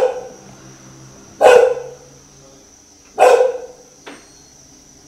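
A dog barking three times, about a second and a half apart, with a much fainter sound about four seconds in.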